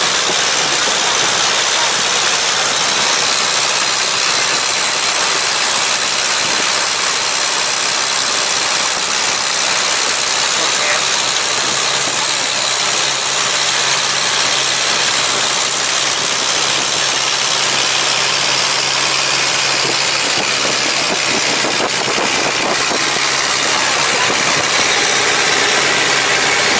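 An engine running steadily with a low even hum under a loud, constant hiss.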